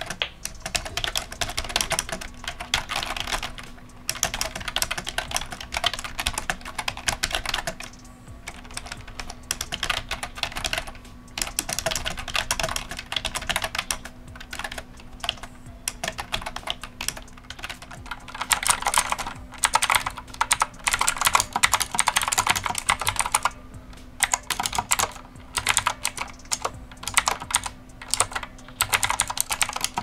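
Typing on an Azio computer keyboard with softer keys, then, about two-thirds of the way through, on an E-YOOSO K600 retro mechanical keyboard with blue clicky switches, whose clicking is louder and sharper.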